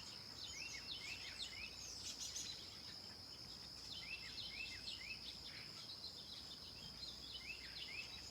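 Small birds chirping in runs of quick, short falling notes, with a steady high-pitched insect drone underneath.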